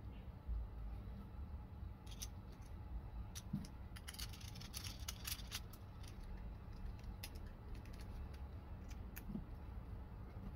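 Light metal clicks and taps as hands handle and fit together the metal parts of a mechanical slingshot rifle, with a quick flurry of clicks about four to five seconds in.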